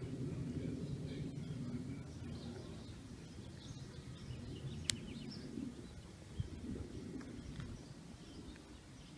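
Outdoor ambience: a steady low rumble with faint, scattered bird chirps, and one sharp click about five seconds in.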